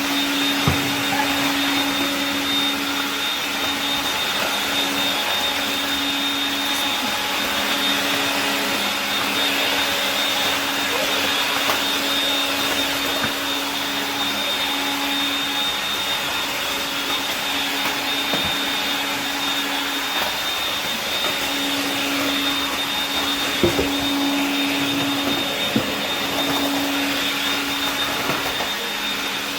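AEG CR7 cordless stick vacuum, refitted with a brushless motor driven by an ESC, running steadily with a high whine and a rushing hiss of air. A lower hum swells and fades, and a few light knocks come through, the clearest about 24 seconds in.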